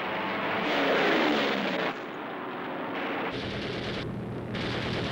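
Aircraft battle sound effects: a plane's engine whine falls steeply in pitch and cuts off abruptly about two seconds in. Gunfire follows, and a steady low aircraft-engine drone comes in near the end.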